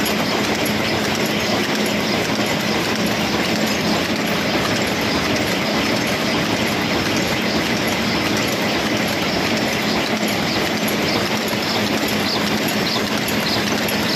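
High-speed paper cup making machine running, a steady mechanical clatter of fast repeating clicks over a constant hum.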